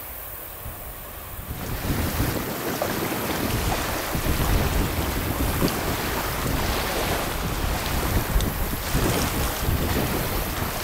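Wind buffeting the microphone: a rushing noise with gusty low rumble that comes in suddenly about a second and a half in.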